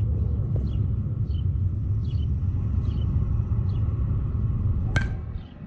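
Steady low rumble of wind on the microphone, with short bird chirps repeating over it. Near the end a single sharp crack of a bat hitting a pitched ball.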